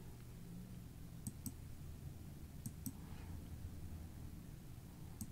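Computer mouse double-clicking: pairs of sharp, faint clicks about a fifth of a second apart, three times, over a low steady hum.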